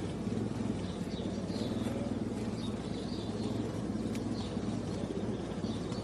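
Steady low rumble with faint bird chirps.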